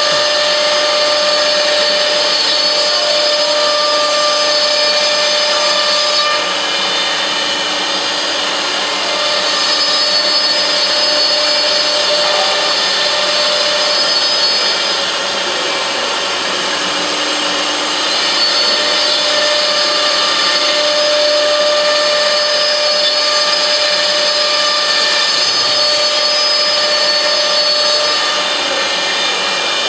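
CNC router spindle running and cutting, a steady high whine over a loud hiss, its level and tone shifting slightly every few seconds as the cut changes.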